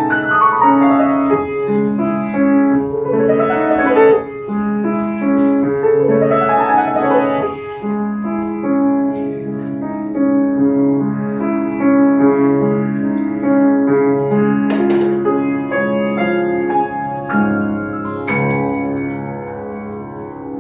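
Grand piano played live: fast arpeggiated runs sweep up and down three times in the first several seconds, then give way to slower held chords that grow softer near the end.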